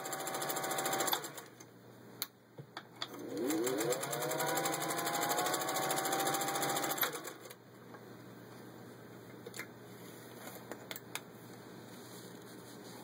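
Singer 201-2 sewing machine with its potted motor stitching through six layers of denim. It runs and stops about a second in, then after a few clicks starts again, speeding up with a rising whine. It runs steadily and stops about seven seconds in. A few light clicks follow.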